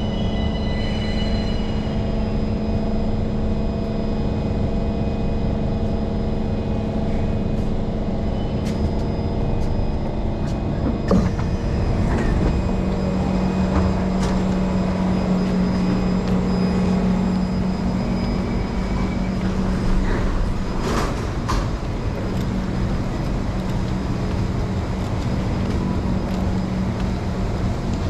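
Singapore MRT train standing at a station: a steady electrical hum with the rush of air-conditioning. A few clicks and knocks come about eleven seconds in as the doors open, after which a lower steady hum from the stopped train continues.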